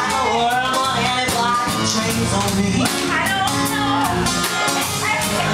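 Live band playing a slow song: a woman singing into a microphone over electric guitar, drum kit and saxophone.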